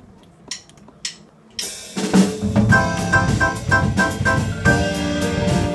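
Two sharp clicks, then about two seconds in a small jazz ensemble starts playing: drum kit, grand piano and a Bergerault vibraphone, with evenly repeated pitched notes over the drums.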